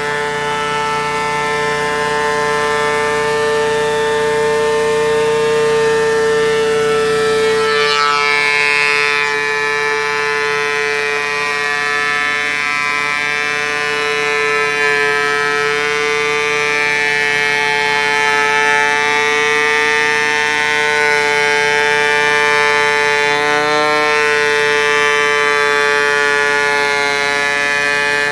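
Thickness planer running with a steady high-pitched motor whine, its sound shifting about eight seconds in, as a 2x6 feeds through.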